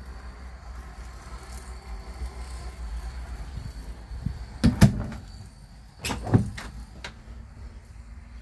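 An interior door being handled, with sharp knocks and latch clicks in two clusters, a little past halfway and again about a second and a half later, over a low steady rumble.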